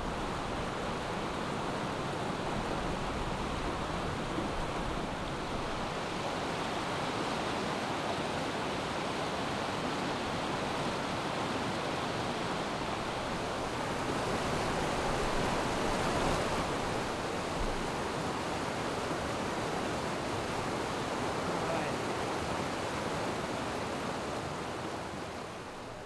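A fast, shallow mountain river rushing over rocks: a steady sound of whitewater, slightly louder about halfway through.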